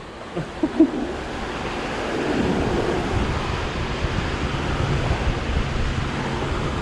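Steady rushing of water pouring from a canal overflow, with wind noise on the microphone. Two short sounds stand out just under a second in.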